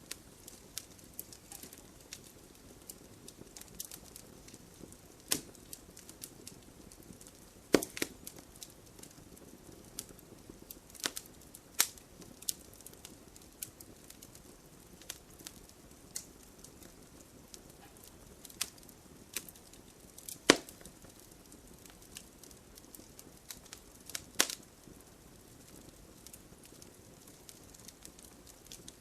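Wood fire in a fireplace crackling, with irregular sharp pops and snaps from the burning logs over a faint steady hiss; the loudest pops come about eight, twelve and twenty seconds in.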